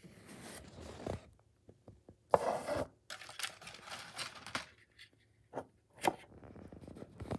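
Packing paper and a foam wrapping sheet being handled and pulled off a model locomotive: rustling and scraping in several short bursts, the loudest a little over two seconds in.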